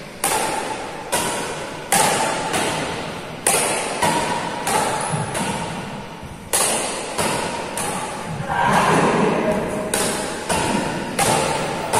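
Badminton rackets striking a shuttlecock back and forth in a rally: about a dozen sharp hits, each ringing on in the echo of a large hall.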